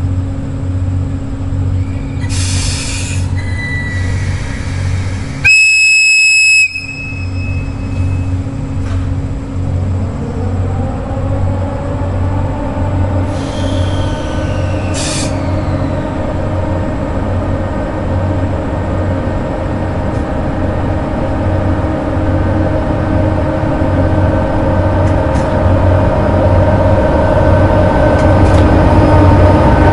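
EF64 electric locomotive giving one loud blast of its whistle, about a second long, some five seconds in. Its motors then hum, rising a little in pitch and growing louder as the train pulls out and runs past.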